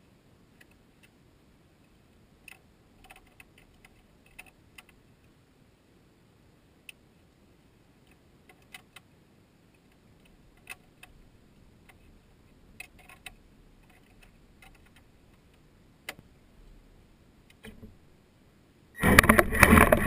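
Faint scattered clicks and ticks over a quiet background, then about nineteen seconds in the Traxxas Slash RC truck's motor and drivetrain start up suddenly and loudly with a whine as the truck pulls away.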